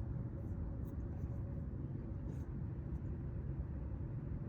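Steady low rumble with a faint hum over it and no clear events.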